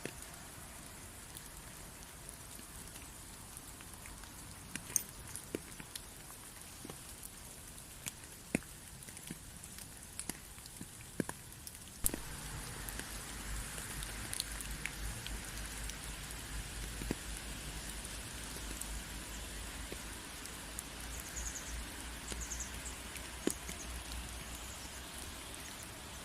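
Rain falling steadily, with scattered sharp ticks of single drops hitting a surface. About halfway through the rain grows louder and a low rumble joins it.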